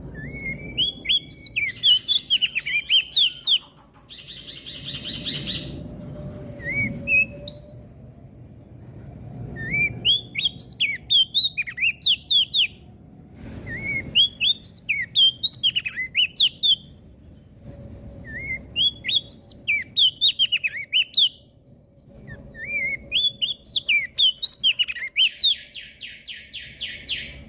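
Javan grey-throated white-eye (opior jambul) singing: about five bursts of quick, sliding high chirps, each lasting around three seconds, with short pauses between them. A buzzy rattle follows the first burst and ends the last one.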